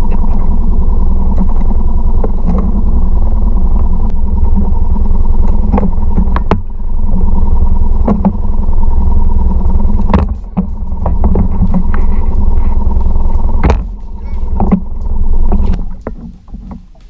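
Small Mercury 3.5 hp outboard motor on a kayak, running steadily with a low drone and sharp knocks now and then. It eases off briefly a few times and drops away near the end.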